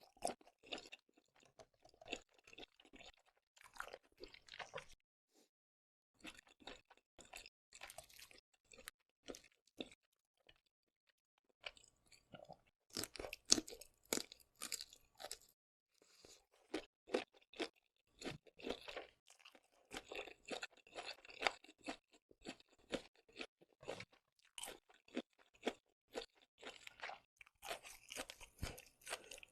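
Close-miked chewing of seafood with a run of wet crunching and crackling bites, pausing briefly twice before the chewing picks up again and grows denser.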